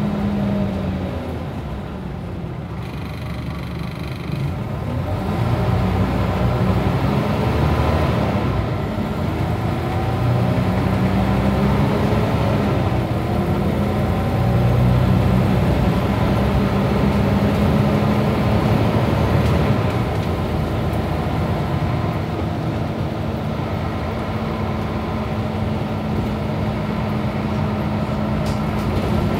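Diesel engine of a Scania OmniCity single-deck bus heard from inside the saloon while the bus is driven, its note rising and falling as it pulls and eases off. A beastly engine note, sounding healthy.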